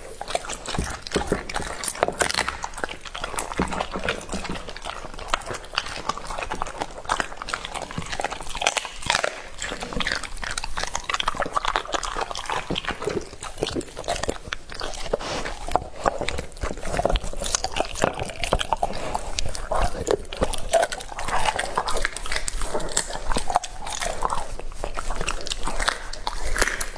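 A Rottweiler licks, smacks its lips and sniffs over a plate of raw chicken, with wet mouth clicks throughout. Whining, grumbling vocal sounds come in between the clicks, more of them in the second half.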